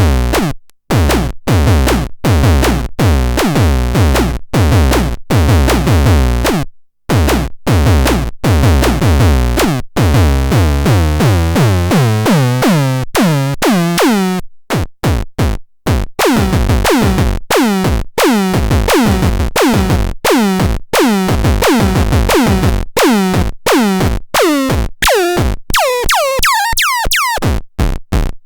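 Electronic synthesizer sounds from a BUM TRON MINI: a rapid rhythmic run of pitched synth notes, each sliding quickly down in pitch, over a drum-machine-like pulse. It stops briefly twice, and near the end the notes turn into quicker short blips.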